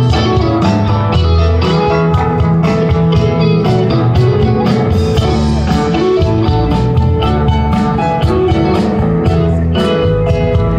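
Live rock band playing through a PA, heard from far back in an outdoor crowd: guitar lines over steady bass and a regular drum beat.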